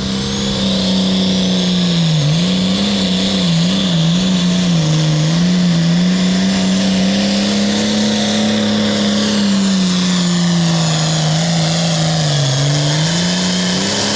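Case IH MX210 pulling tractor's diesel engine at full throttle under load, dragging the weight sled, with a high whine above it. The revs sag and recover a few times about two seconds in, hold steady, sag again near the end, then drop away.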